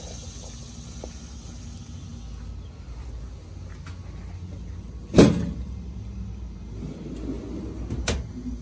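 Stainless-steel warming drawer being handled: one loud metallic clunk about five seconds in and a sharper click near the end, over a steady low rumble.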